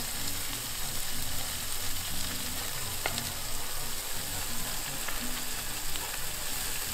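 Sliced onions and bell peppers sizzling steadily in oil on a disco, a plough-disc pan over a wood fire, while tomato slices are laid on top; a faint click about three seconds in.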